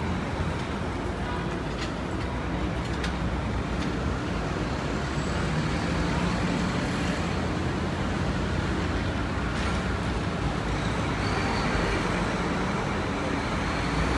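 Steady road traffic on a city avenue: motor vehicles running and passing, with the low hum of engines.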